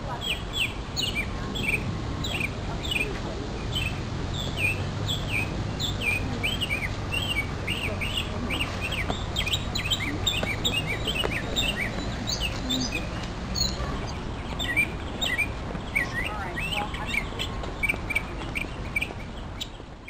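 A songbird singing without a break: a rapid string of short, sharp, high whistled notes, several a second, over a low steady background rumble.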